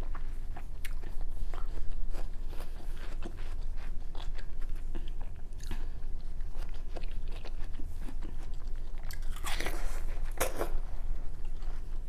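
A boy chewing and biting into chunks of raw watermelon, with many small wet crunches and mouth clicks. Two louder, longer sounds come near the end, over a steady low hum.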